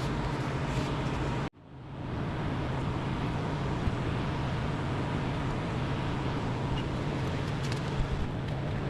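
Heat gun blowing steadily to shrink heat-shrink tubing over a spliced motor wire: a rushing noise with a low hum. It cuts out sharply about a second and a half in, then comes back within half a second; a couple of light clicks follow.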